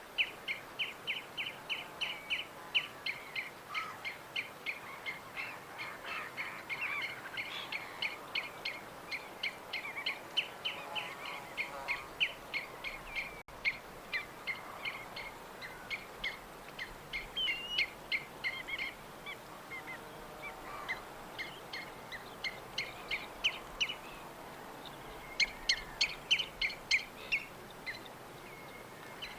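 Songbirds chirping: fast runs of short, sharp chirps, often about four a second, that thin out for a few seconds and come thick again near the end, over a faint steady outdoor hiss.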